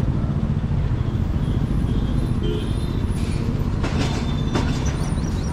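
Road vehicle on a highway: a steady, loud low rumble of engine and road noise, with a few faint clicks about three to four seconds in.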